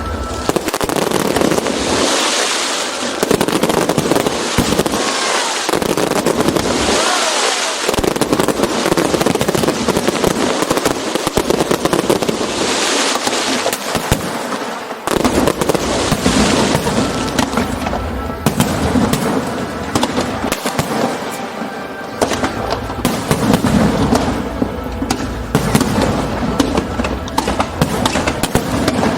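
Aerial fireworks display going off in quick succession: dense bangs and crackling shells, with a few spells of bright hissing crackle, over background music.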